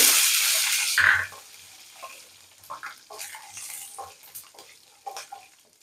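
Garlic cloves sizzling in a hot steel kadai with roasting cumin, black pepper and fenugreek. The sizzle is loud for about the first second and then dies down, leaving a wooden spatula scraping and stirring in the pan.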